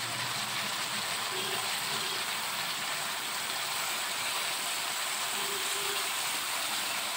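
Cabbage and potatoes in spiced oil sizzling steadily in a hot wok, an even frying hiss.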